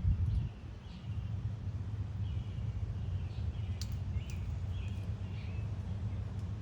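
Outdoor ambience: a series of short, high bird chirps, about half a dozen spread over a few seconds, over a steady low rumble, with a brief low thump right at the start.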